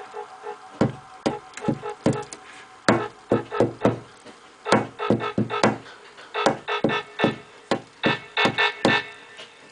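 Jumpstyle techno music: a synthesizer line over a hard kick-drum beat that drops out briefly a few times.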